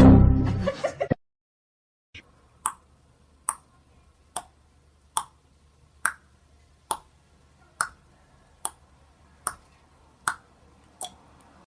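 A loud sound that cuts off about a second in, then a dozen sharp clicks evenly spaced a little under a second apart.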